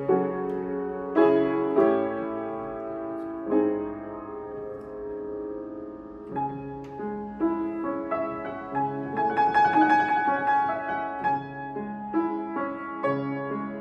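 Piano playing a slow piece of struck, sustained chords, with a quicker run of higher notes a little past the middle.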